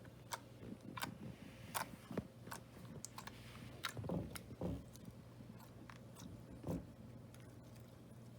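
Slime being squeezed and worked by hand, with irregular small clicking pops and a few wetter squelches around the middle and near the end.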